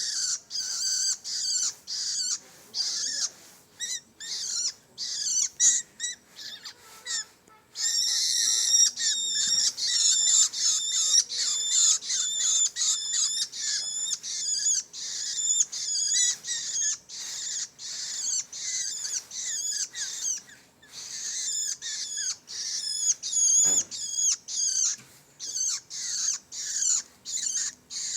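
Long-tailed shrike (pentet) chicks calling over and over in short, high begging calls, about two to three a second, running together into a steady stream for a moment about a third of the way in.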